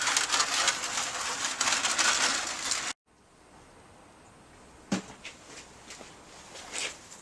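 Engine oil pouring in a steady splashing stream, cut off suddenly about three seconds in; then quiet, with a few light clicks of handling.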